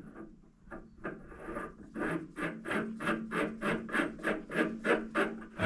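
A threaded steel test piece is turned into freshly cut internal metric threads in a steel nut, testing the fit. The metal threads rub in a fast, even rasp, about four to five strokes a second, with a steady low hum from about two seconds in.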